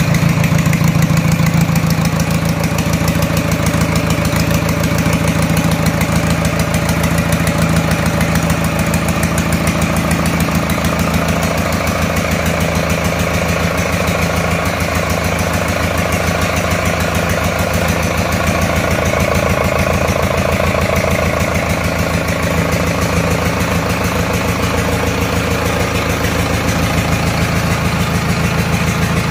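Rebuilt JCB 444 four-cylinder diesel engine running steadily at idle on the workshop floor during its test run after repair.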